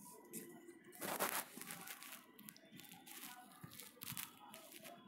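Faint rustling and scattered small clicks over quiet room tone, a little louder about a second in.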